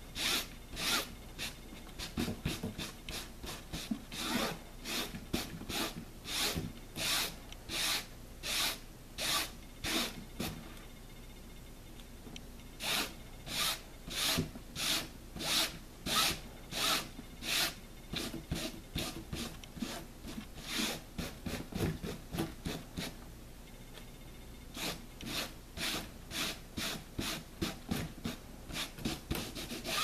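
Crumpled saran wrap (plastic cling film) rubbed and dabbed over paint on paper in short strokes, about two a second, with two short pauses.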